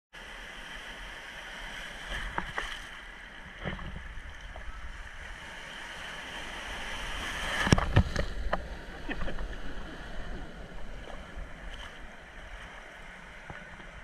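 Sea surf washing and splashing around a person wading in the shallows, heard close to the water, with a breaking wave surging past about eight seconds in as the loudest moment.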